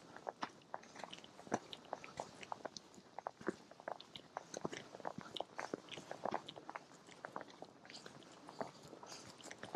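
Footsteps crunching on a trail surface, a steady stream of small irregular crackles and clicks.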